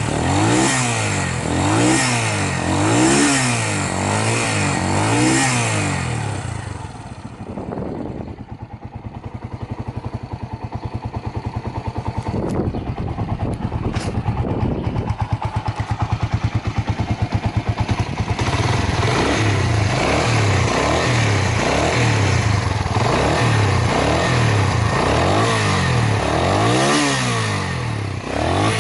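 Suzuki Grasstracker Big Boy's single-cylinder four-stroke engine being blipped on the throttle over and over, then dropping to a steady idle with distinct firing pulses about a third of the way in. It is revved again from about two-thirds of the way on, running with no abnormal noises according to the seller.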